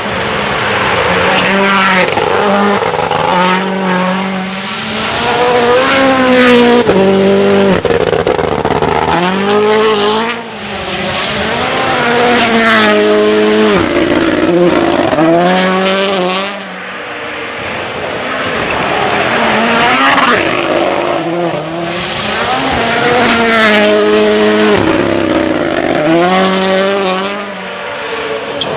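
Rally cars going flat out on a stage, engines revving up and dropping through quick gear changes, loud and rising in pitch again and again; the sound swells and fades several times as cars come through.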